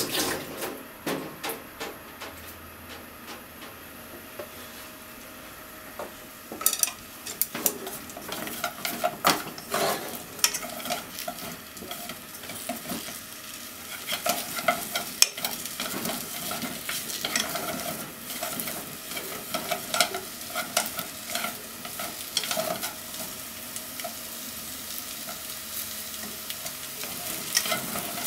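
Potato chunks sizzling as they fry in a non-stick pot. From about six seconds in, wooden chopsticks stir and turn them, with many clicks and knocks against the pot.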